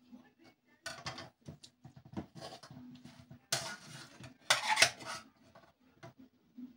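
Metal knife and fork scraping and clinking against a metal bowl and plates as food is served, with two louder scrapes a little past the middle.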